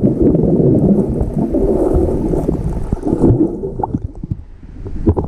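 Muffled gurgling and sloshing of stream water, heard with the microphone underwater.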